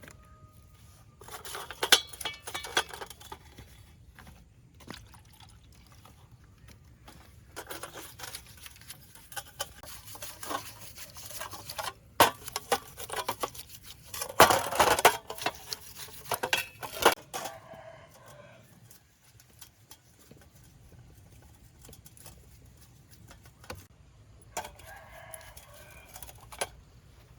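Irregular clicks and knocks of tools and parts being handled during repair work on a truck, loudest about halfway through. A rooster crows twice in the background near the end.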